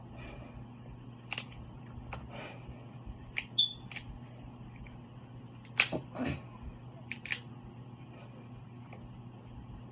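Person eating a seafood boil up close: a scattering of short, sharp clicks and snaps, about ten in all, over a steady low hum.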